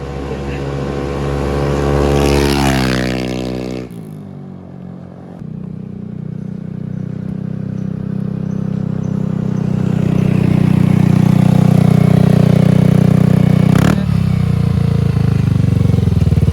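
Yamaha NMAX scooter's 155 cc single-cylinder four-stroke engine through a KOU power pipe exhaust, revving up and dropping off when the throttle closes about four seconds in. It then climbs steadily again over several seconds and holds at high revs, with a brief dip near the end.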